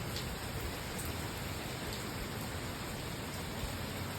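Heavy hurricane rain pouring steadily, with a few faint ticks of drops striking.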